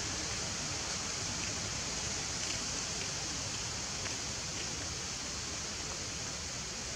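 Steady hiss of forest background sound, strongest high up, with a few faint small ticks.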